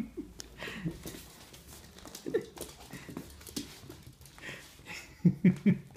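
Small dog whining and yipping in excitement, short rising cries at irregular moments and a quick run of three loud yips about five seconds in.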